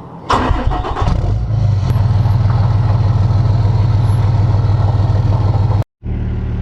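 Cummins 12-valve diesel engine in a Dodge 2500 pickup starting up and catching, then running at a steady idle with an even low pulse. It cuts out for a moment near the end and then carries on.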